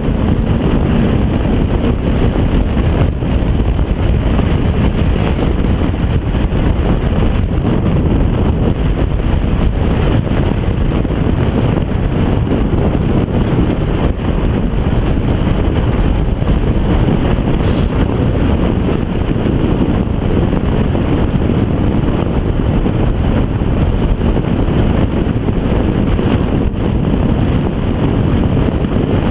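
Steady, heavy wind noise buffeting the microphone of a KTM 990 Adventure motorcycle at road speed, with the bike running underneath. The short stock windscreen is fitted, and it lets a lot of wind around the rider.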